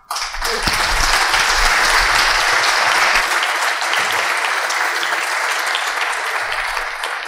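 Conference audience applauding: dense clapping that starts suddenly and slowly dies down toward the end.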